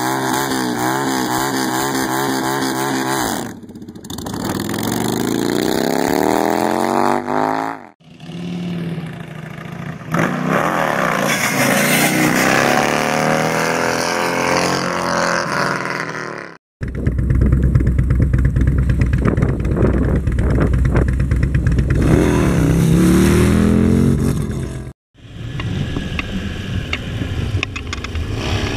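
Motorcycle engines revving and accelerating hard, the pitch rising repeatedly as they pull through the gears. The sound comes in several short stretches that cut off abruptly one after another, with a loud low rumble in the middle stretch.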